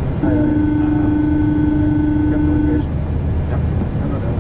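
Airliner flight deck noise on approach: a steady low rush of airflow and engines. A steady electronic tone sounds over it from just after the start for about two and a half seconds, then stops.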